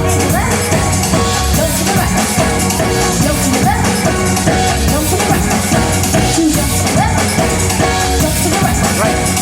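Loud music with a steady drum-kit beat.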